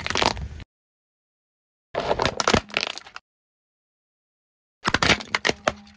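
Plastic toys cracking and crunching as a car tyre rolls over them, in three short bursts of snaps separated by dead silence.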